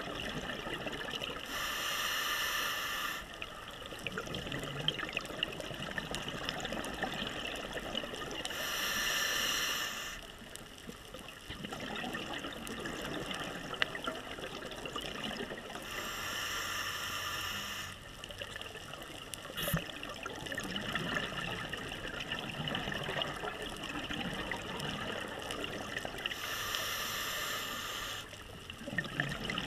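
Scuba regulator breathing underwater: four slow breaths, each a short hiss of inhalation followed by a long stretch of bubbling exhalation.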